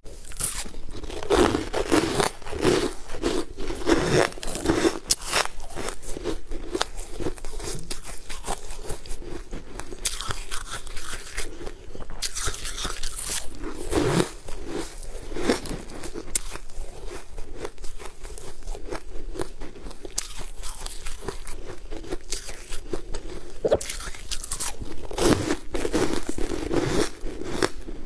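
Close-miked biting and chewing of crunchy balls of frozen food: a dense run of crisp crunches and crackles, heavier in a few spells where fresh bites are taken.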